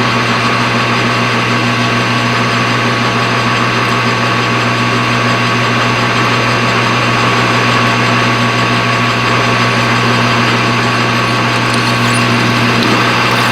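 Machine tool running steadily while machining a metal coaster, with an even mechanical whine that holds one pitch.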